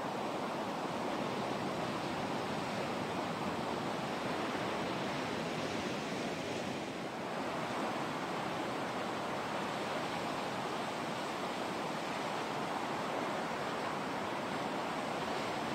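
Heavy shore-break surf: waves breaking and washing up the beach in a steady, unbroken rush.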